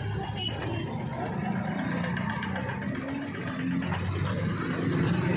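Busy street traffic: cars and motor scooters passing close by, engines running, getting louder near the end.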